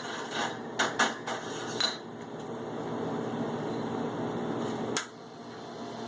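Metal knocks and clinks on a three-group commercial espresso machine, several sharp ones in the first two seconds, one of them ringing briefly. Then a steady running noise from about two seconds in that stops with a click near the five-second mark.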